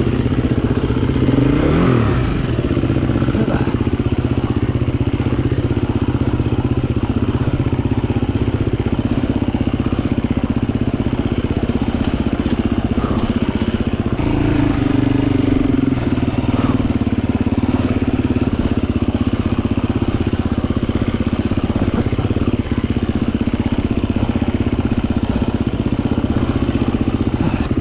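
Gas Gas 350 dirt bike's four-stroke single-cylinder engine running steadily while being ridden along a trail, with the revs rising briefly about two seconds in.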